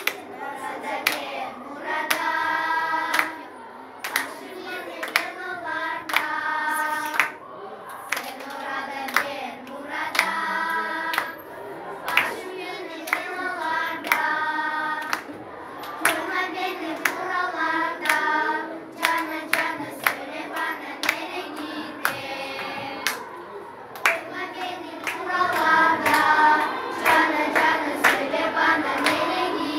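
A group of voices singing together while hands clap along in a steady beat, roughly twice a second.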